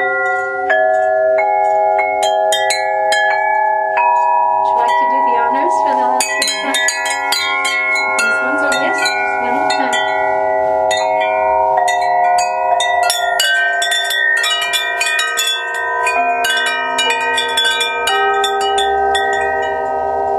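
Aluminum solfeggio tuning tubes struck one after another, each ringing on with a long sustain so the pure tones overlap into a chime-like wash. The strikes come steadily at first, crowd together in a quick cascade through the middle, then thin out to single notes.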